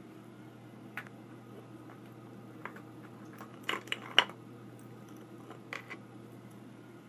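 A few sharp knocks and clatters as a puppy rummages in a plastic basket of toys and chews, the loudest cluster about four seconds in, over a steady low hum.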